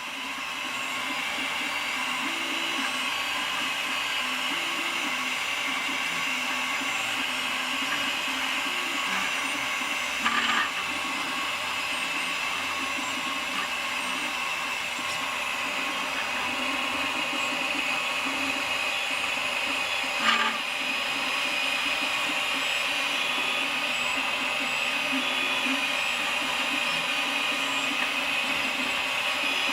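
Malyan M150 3D printer running, its print bed travelling along the Y axis with a rattle over a steady machine whir, and two brief louder knocks about 10 and 20 seconds in. The owner puts the rattle down to poor-quality bearings under the bed.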